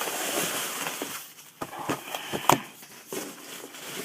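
Plastic trash bags rustling and crinkling as they are handled, with a few short sharp clicks or knocks in the middle.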